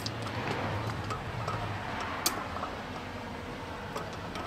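Brass hose fitting worked with metal pliers: a few small metallic clicks and one sharp click about two seconds in, over a steady low background hum.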